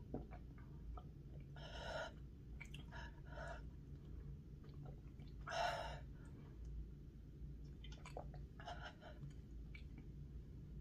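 Quiet sips of milk through a plastic straw mixed with heavy breaths, five or six short breathy sounds spaced a second or two apart, the loudest about five and a half seconds in.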